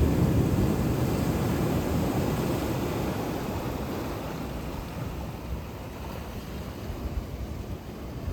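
Sea waves on the shore: the surf washes and then slowly fades away as the wave recedes, a steady noise that is heaviest in the low rumble.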